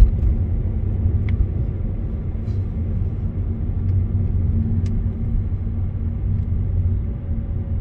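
A vehicle driving along at a steady pace: a steady low rumble of engine and road noise, with an even hum under it.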